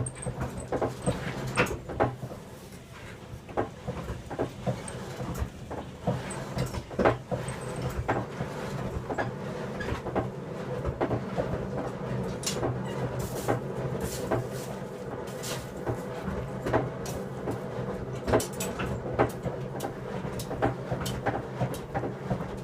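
Blacksmith's forge work on an axe: irregular knocks, taps and clanks of metal and tools, some louder strikes among them, over a steady low hum.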